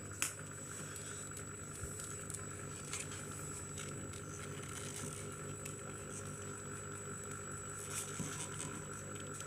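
Faint, scattered clicks and taps of a thin metal pick and plastic parts as a laser printer drum unit's end cap is pried apart, over a steady low hum.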